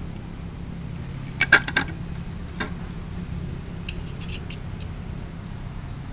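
Hard plastic and metal clicking and tapping as a clear acrylic plate with brass fittings is handled on a motorcycle cylinder head. There is a quick cluster of sharp clicks about a second and a half in, a single click a second later, and a scatter of lighter clicks around four seconds in, over a steady low hum.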